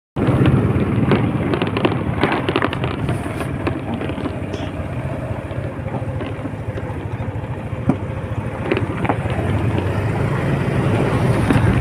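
Motorcycle engine running steadily while riding, with wind buffeting the microphone; it starts abruptly at a cut.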